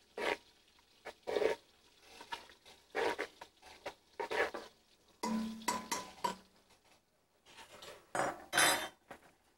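Metal pots, pans and a stirring utensil clattering at a stove: a scattered series of short clinks and scrapes as pasta is stirred in its pot and cookware is handled.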